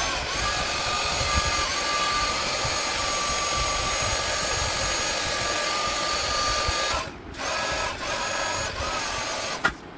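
Small handheld electric air pump running with a steady high whine as it inflates the rear tail section of an inflatable pool. It spins up at the start, cuts out briefly about seven seconds in, falters twice more as it is stopped and restarted, and switches off with a click just before the end.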